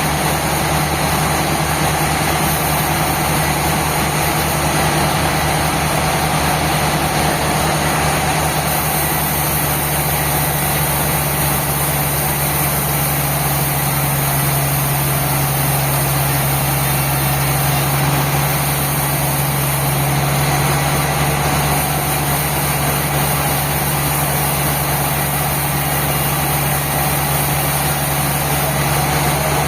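Sawmill machinery running steadily: a constant engine-driven drone with a strong low hum and no change in load.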